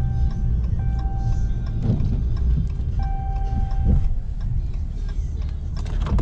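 Ram pickup running with a low rumble heard inside the cab. An in-cab warning tone sounds in long beeps about a second each, three times, and there are a couple of dull knocks.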